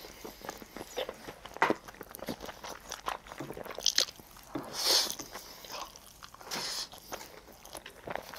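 A person slurping saucy instant fire noodles off chopsticks in a few hissing pulls, the loudest about four and five seconds in, with wet chewing and lip smacks between.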